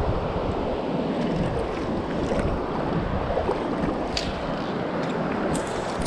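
Steady rush of flowing river water, with wind buffeting the microphone. A couple of faint ticks sound near the end.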